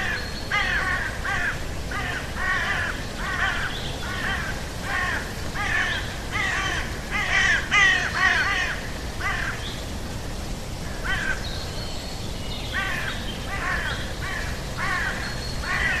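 Birds calling over and over in harsh, crow-like caws, roughly two a second in loose runs, with a short lull a little past halfway. A thin high whistle comes and goes, over a low steady rumble of outdoor ambience.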